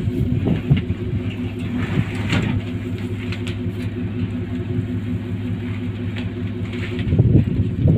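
An engine idling steadily, an even low hum. A few brief noises sound over it, the loudest about seven seconds in.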